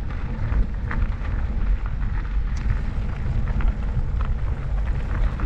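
Wind buffeting the microphone as a steady, gusting low rumble, with faint scattered clicks over it.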